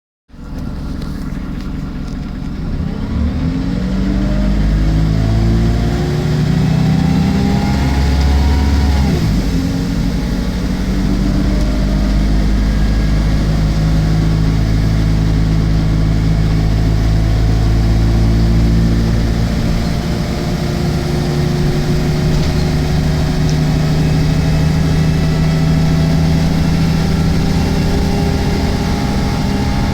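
Diesel engine of a MAN-chassis Alexander Dennis Enviro 300 single-deck bus pulling away. The note climbs for several seconds, drops sharply at a gear change about nine seconds in, then runs on steadily, rising slowly again.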